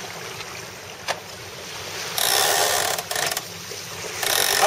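Wind and water rushing past a Melges 24 keelboat sailing under way, with louder hissing surges about two, three and four seconds in and a single sharp click about a second in.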